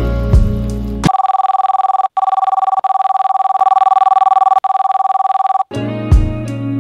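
Electronic telephone-ring sound effect: a steady two-tone trill, pulsing rapidly, that cuts in over the background music about a second in. It lasts about four and a half seconds, with two brief breaks, and the music comes back near the end.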